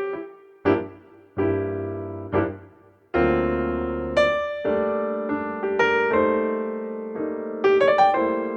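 Background piano music: notes and chords struck and left to fade, with a short near-silent gap about three seconds in before fuller chords take over.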